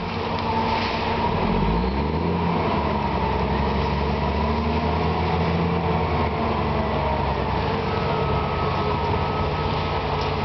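Heavy diesel engine, most likely the bogged logging truck's, revving up about a second in and then running hard and steady under load.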